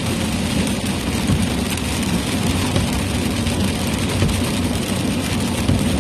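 Steady noise inside a moving vehicle during a rainstorm: the engine and tyres running with a constant hiss from the wet road and rain.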